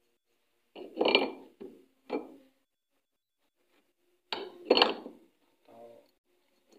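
Metal parts and a hand tool clinking and knocking in short clusters while a washing-machine gearbox pulley is fitted. The loudest strikes come about a second in and again near five seconds.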